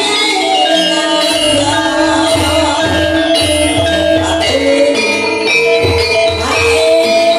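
Live gamelan music accompanying an ebeg horse-trance dance, with a singing voice over held melodic tones. Low drum strokes come in about a second and a half in and keep a rhythm.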